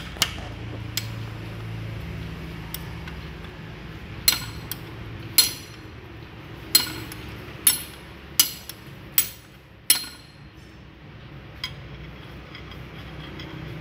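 Metal tool clinking against the steel housing of a Toyota Kijang power steering rack being dismantled: seven sharp, briefly ringing strikes about a second apart in the middle, with a few lighter taps near the start and near the end. A low steady hum runs underneath.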